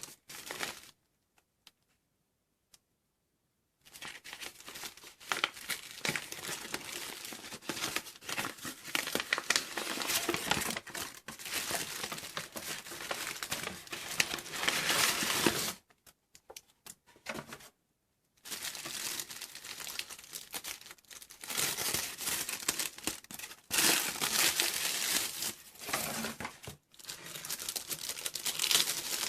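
Paper packaging being unwrapped by hand, crinkling and tearing in dense rustles, with two brief breaks where it stops.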